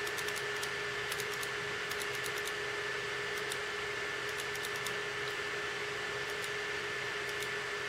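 Computer mouse clicking lightly and irregularly as the on-screen chat is scrolled, over a steady hiss with a faint constant hum.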